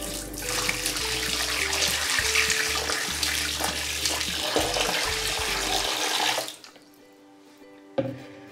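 Hot water poured from a plastic pitcher, splashing into a bathtub at the drain. The pouring stops suddenly about two-thirds of the way through.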